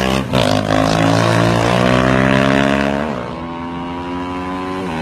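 Honda CRF250L's single-cylinder four-stroke engine revving as the dirt bike accelerates past. Its pitch climbs steadily, then drops sharply about three seconds in and the engine sounds quieter as the bike pulls away.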